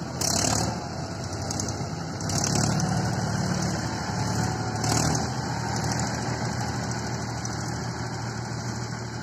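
Mahindra 275 DI tractor's diesel engine running, swelling louder a few times in the first half and then settling to a steadier, slightly quieter run.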